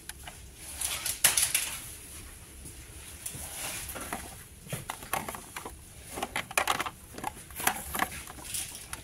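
Scattered clicks and rustles of handling noise close to the microphone, irregular and without any steady rhythm.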